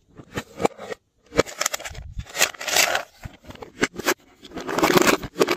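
Hands handling plastic slime containers and charms: an irregular run of sharp clicks and knocks with longer crackling, scraping stretches.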